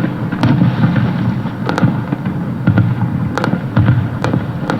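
Fireworks: a continuous low rumble of aerial shells bursting, with about seven sharp cracks spread through it.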